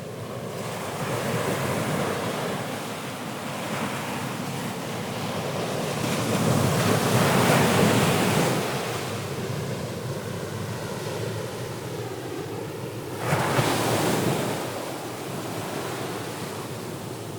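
Ocean waves washing ashore, surging and receding in slow swells, with the biggest surge midway and a sharper wave breaking about thirteen seconds in.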